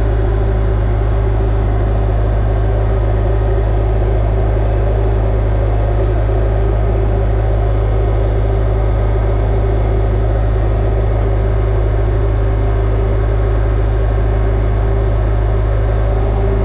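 Steady, loud, low machine hum with a constant higher tone above it, unchanging throughout.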